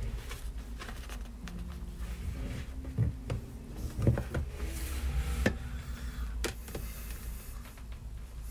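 Pages of a paperback book being flipped and turned, the paper rustling, with a few light thumps as the book is handled on the desk, the strongest about three and four seconds in.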